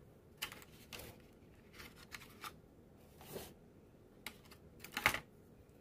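Light clicks and taps of small gel polish bottles being handled, picked up and set down, with a short scrape about three seconds in and the loudest, quick double click near the end.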